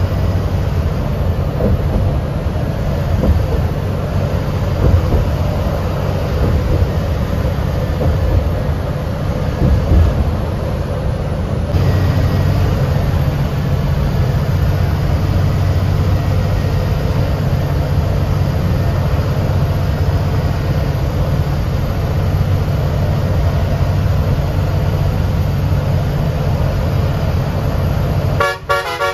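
Steady drone of a BS6 bus's engine and tyres on the highway, heard from inside the driver's cab while driving. The sound shifts slightly about twelve seconds in and breaks up briefly just before the end.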